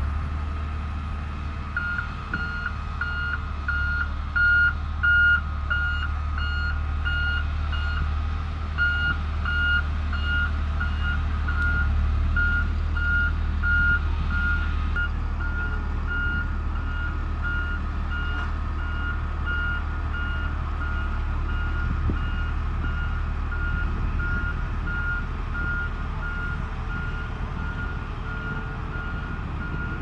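Road roller's reversing alarm beeping steadily about twice a second, starting about two seconds in, over the low steady running of the machine's diesel engine. Two brief louder bumps come about four and five seconds in.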